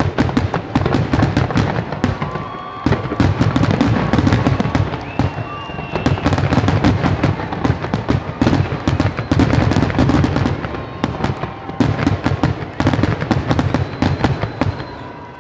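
Fireworks finale barrage: aerial shells bursting in rapid, overlapping succession with deep booms and crackling, dying away at the very end.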